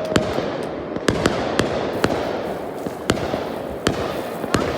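Fireworks grand finale: about a dozen sharp bangs at irregular intervals over a continuous haze of more distant bursts.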